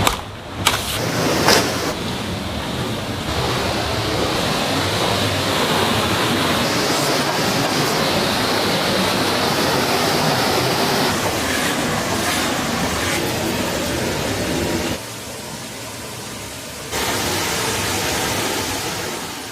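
Rushing water of a forest stream, a steady loud hiss, with a few sharp knocks in the first two seconds. It drops abruptly about three-quarters of the way through and comes back two seconds later.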